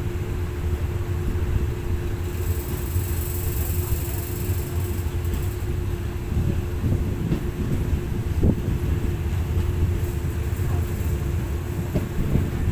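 Express passenger train running along the track, heard from an open carriage window: a steady low rumble with wind buffeting the microphone, a steady hum underneath, and a brief hiss about two to five seconds in.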